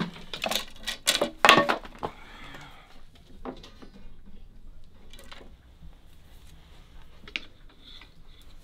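Thin bamboo rods clacking and knocking against each other and the brick hearth as they are handled. A quick cluster of sharp knocks comes in the first two seconds, then a few single taps.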